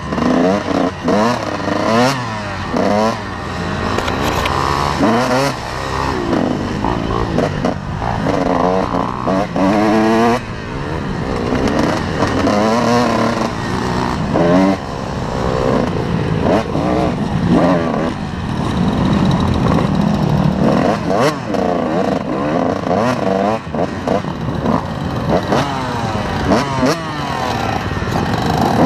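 2002 Honda CR125's two-stroke single-cylinder engine being ridden hard, its pitch climbing and dropping over and over as it is throttled up and shifted through the gears.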